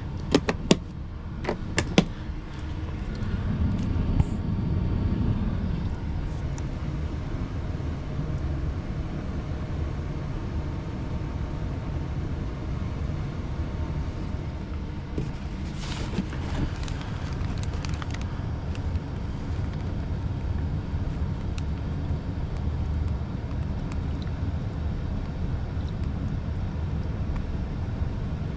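Steady low rumble of running machinery, with a few sharp clicks in the first two seconds and a brief hiss about sixteen seconds in.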